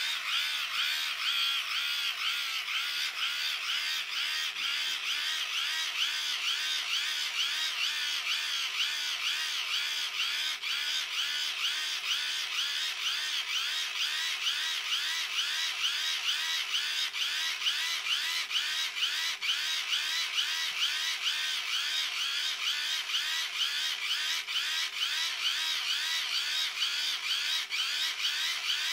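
Hand crank of a wind-up dynamo radio torch being turned at a steady pace, about three turns a second, its geared generator whirring in an even, repeating rise and fall. The dynamo is charging a phone.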